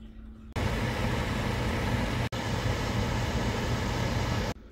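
A loud, steady mechanical rushing noise with a low hum in it. It starts and stops abruptly, with a brief break about two seconds in.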